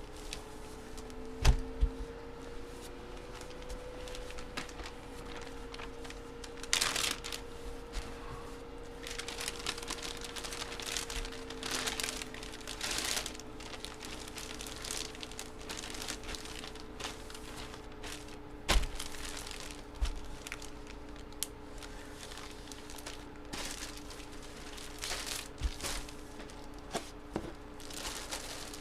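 Plastic card wrapping crinkling and tearing as trading-card packaging is opened and handled, in bursts that come and go, with a few sharp knocks on the table. A faint steady hum runs underneath.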